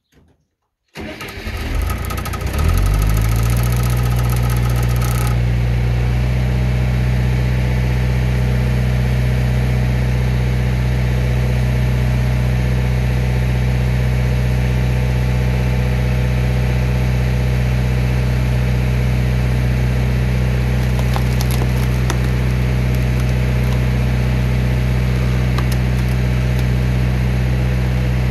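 Engine that powers a homemade hydraulic log splitter is started about a second in, catches and settles into a steady run.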